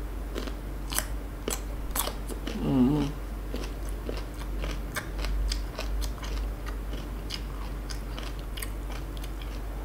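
Close-up chewing of a crunchy slice of unripe green mango: irregular crisp crunches, with a short hummed "mm" about three seconds in.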